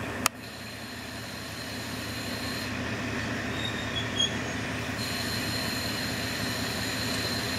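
KiHa 40 diesel railcar easing to a stop, its diesel engine running steadily underneath. There is one sharp click just after the start and a few brief high brake squeaks about four seconds in as it halts.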